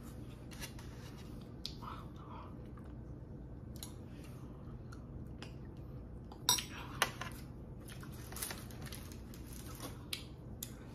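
Metal spoon scraping and clinking against a glass bowl of ice cream, in scattered small clicks, with two sharper clinks half a second apart a little past the middle.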